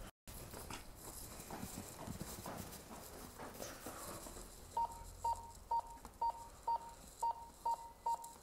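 Footsteps of hard-soled shoes on a hard floor, then a run of short electronic beeps at one steady pitch, about two a second, starting a little past halfway.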